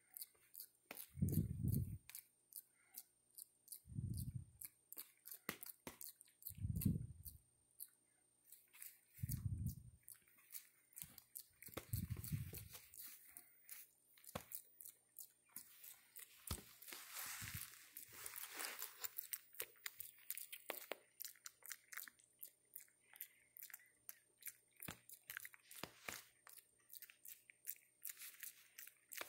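Macaques grooming at close range: soft clicks and crunching from fingers and mouths picking through fur, and some rustling partway through. A few dull low thuds come about every two and a half seconds in the first half.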